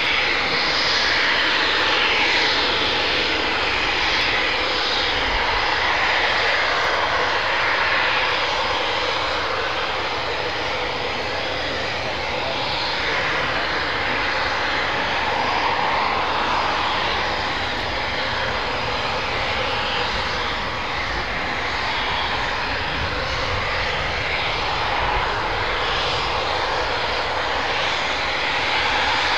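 Eurofighter Typhoon's twin EJ200 turbofan engines whining and hissing at taxi power as the jet rolls along. The sound holds steady in loudness, its tone slowly sweeping up and down as the aircraft moves.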